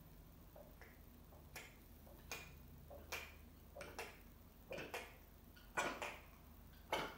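Domestic cat retching before throwing up: a run of short hacking heaves about every three quarters of a second, growing louder, with the loudest heaves near the end.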